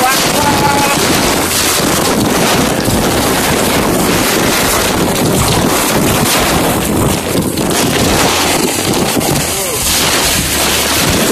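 Waterfall rushing, a loud dense steady roar of falling water, with wind buffeting the microphone. A few brief voices call out over it.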